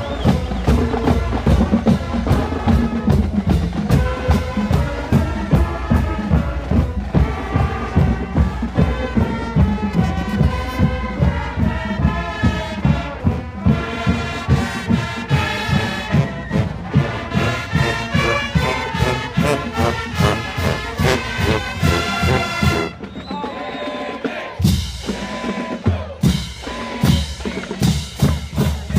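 Brass band playing a tune, with horns over a steady bass-drum beat. About 23 seconds in, the full band drops away and quieter, scattered drum hits are left.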